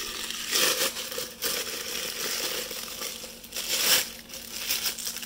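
Crumpled packing paper and bubble wrap crinkling and rustling as they are pulled off by hand, in irregular bursts, loudest about four seconds in.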